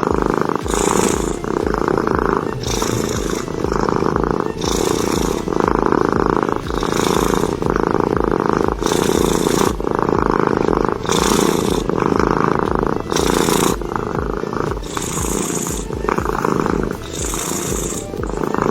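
A domestic cat purring loudly, close up. The rough, buzzing purr swells and eases with each breath, in cycles about two seconds long.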